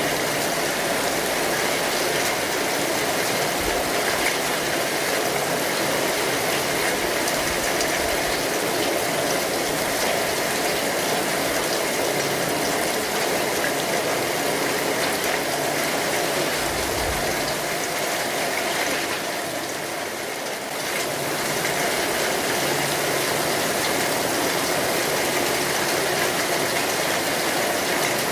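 Steady rain falling on an umbrella, a dense even patter of many drops that softens briefly about two thirds of the way through.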